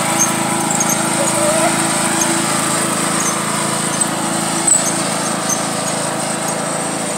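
Riding lawn mower's small engine running steadily at speed, growing slowly fainter as it drives away.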